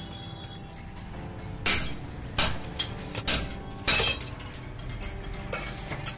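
Steel wheel spokes clinking against each other and the metal hub as they are pulled out of a moped wheel hub and dropped on a pile. There are about half a dozen sharp metallic clinks, loudest in the first half.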